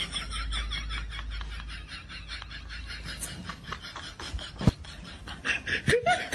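Several young women laughing hard, a breathy, rapid giggling with little voice in it.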